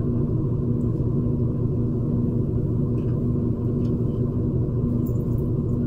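A steady low hum that holds one pitch throughout, from a machine running in the room.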